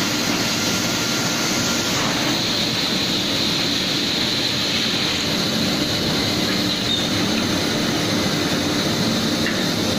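Plywood double size saw running, a steady mechanical noise with a high whine from its spinning saw blades that grows stronger about two seconds in.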